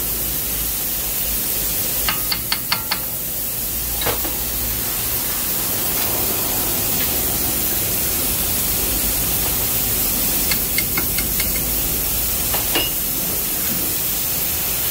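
Light metallic clicks and clinks as hands work the brake caliper bracket on a bare front hub: a quick run of about five clicks a couple of seconds in, a few more later on. Under them runs a steady hiss.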